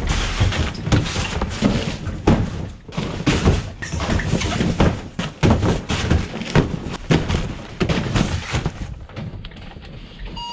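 A rapid, irregular series of knocks and thumps over a low rumble, several a second, easing off near the end.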